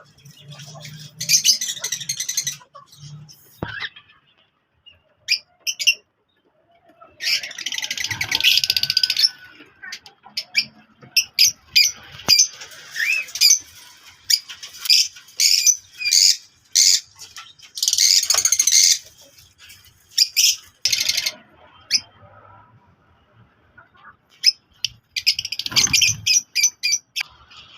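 Caged pet parrots calling: shrill, high-pitched squawks in bursts of a second or two, mixed with many short sharp chirps.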